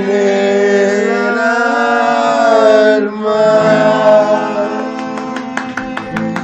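Voices holding a long drawn-out sung note over acoustic guitar, with sharp guitar strums coming in about five seconds in.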